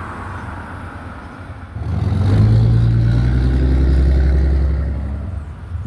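A motor vehicle passing close by: its engine comes up loud about two seconds in as a low rumble, holds, then fades away near the end, over a steady wash of road and wind noise.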